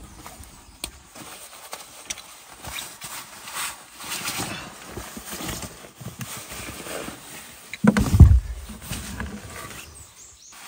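Rustling and rubbing as a wet dog is wiped down at an open car door, with a heavy thump about eight seconds in.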